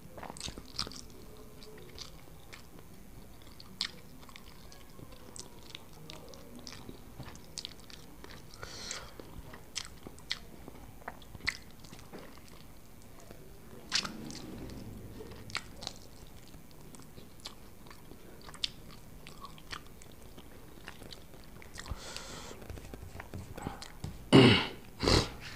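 Close-up mouth sounds of a man eating rice and chicken by hand: chewing with many scattered small clicks, and two much louder bursts of noise near the end.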